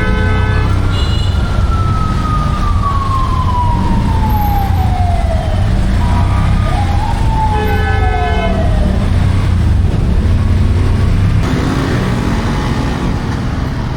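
Motor tricycle engine running through street traffic, with a steady low rumble. Twice a short horn blast is followed by a siren wail that slowly falls in pitch over a few seconds.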